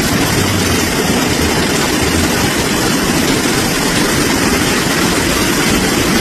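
Heavy rain pouring down: a steady, loud rush of water.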